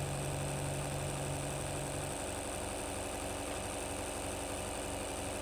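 Homemade disc-type magnet-rotor motor-generator spinning steadily with a hum and a faint high whine, under load while charging a 12-volt battery. A lower hum drops out about two seconds in.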